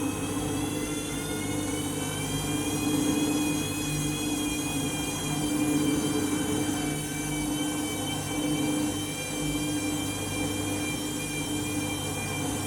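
Washing machine loaded with bedding and towels, draining and spinning: a steady hum under a high motor whine that rises over the first few seconds as the drum picks up speed, then holds steady.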